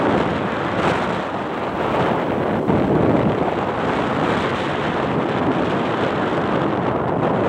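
Wind buffeting a phone microphone while moving along at speed, a steady loud rush of noise.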